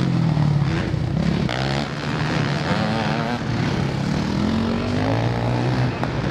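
Motocross bike engines revving on the track, the pitch climbing as they accelerate and dropping back several times as the riders shift and ease off for the turns.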